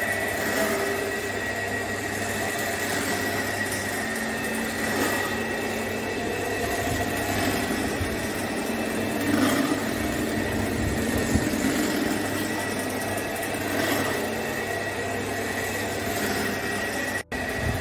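Electric-motor-driven kachi ghani oil press running steadily, its pestle turning and grinding oilseed paste in the bowl, with a steady low hum and a thin high whine.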